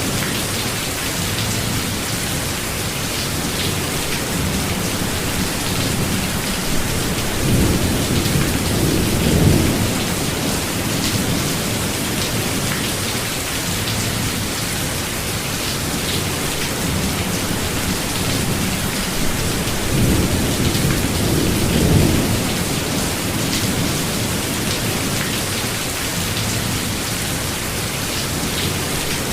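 Steady rain falling in a forest, with thunder rumbling low twice: once about a third of the way in and again about three quarters through.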